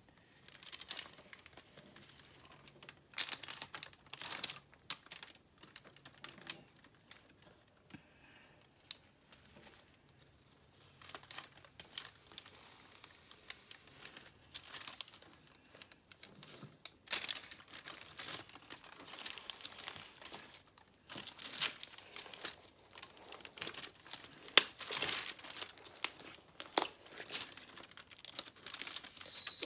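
Hands kneading and squishing butter slime packed with foam beads: irregular bursts of crackling and crinkling, with a quieter stretch about a third of the way in.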